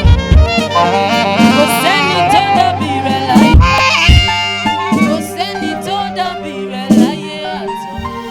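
Saxophone playing a bending, wavering melody over a live band, with chords and drum hits underneath.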